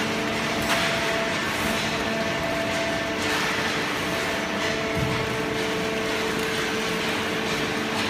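Fully automatic horizontal baler and its chain feed conveyor running, a steady machine hum of several even tones over a wash of mechanical noise. A faint knock comes near the start and a low thud about five seconds in.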